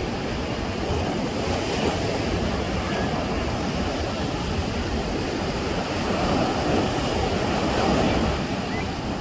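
Sea waves breaking and washing up on the beach: a steady surf rush that swells louder near the end as a wave breaks.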